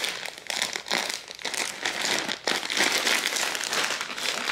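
Clear plastic bag crinkling and rustling in quick, irregular crackles as it is handled and pulled open to get a hoodie out.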